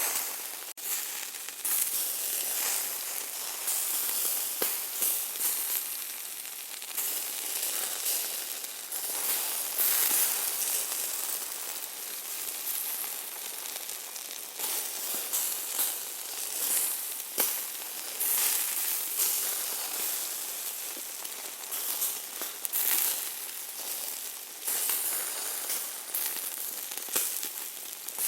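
Hamburger meat sizzling as it cooks: a steady high hiss with many small crackling pops, swelling and easing from moment to moment.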